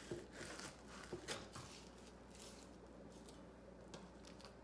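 Faint scraping strokes of a fillet knife sliding between a white bass fillet's meat and skin on a plastic cutting board, mostly in the first second and a half. After that come fainter handling sounds.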